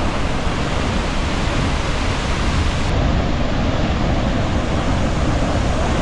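Vernal Falls, a large waterfall, rushing in a loud, steady roar of falling water heard close by. The top end of the roar dulls slightly about three seconds in.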